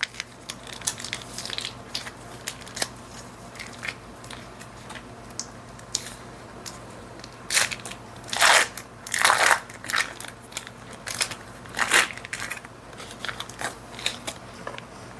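Foil wrapper of a block of cream cheese being peeled open and crinkled by hand: a run of small crackles, with louder bursts of crackling about halfway through and again a few seconds later.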